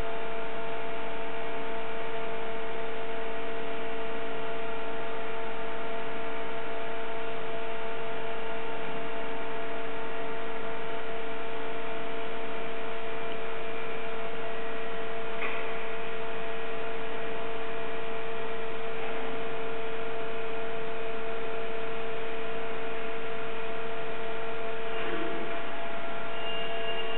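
Steady electric hum made of several fixed tones, unchanging throughout, with a few faint short sounds over it.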